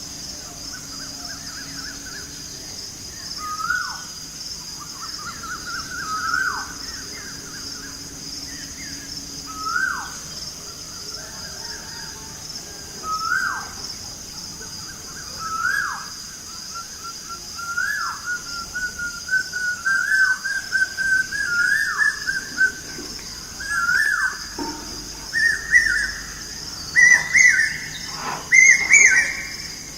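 Asian koel (kuyil) calling over and over, one swooping whistled call every two to three seconds; over the last ten seconds the calls come faster and climb in pitch. A steady high-pitched drone runs behind.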